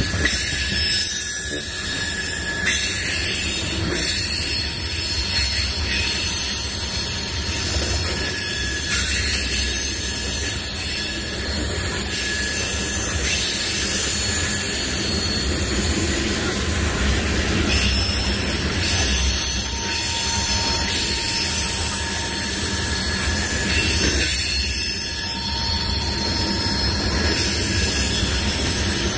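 Norfolk Southern freight train rolling past, its cars giving a continuous rumble with a high, steady squeal of steel wheels on the rails over it.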